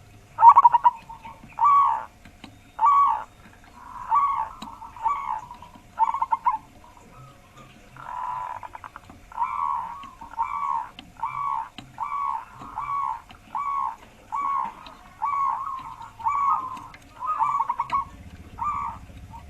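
Zebra dove (perkutut) cooing in a long run of short, deep, pitched coos, about one a second, from a wild local bird whose voice leans to the bass.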